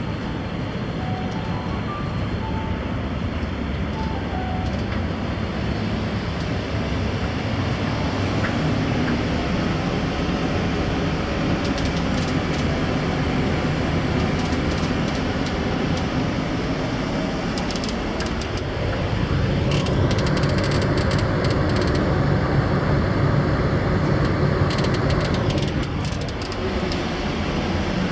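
Steady low drone of a large car ferry's engines and machinery, heard inside the ship. Scattered light clicks come in several short clusters.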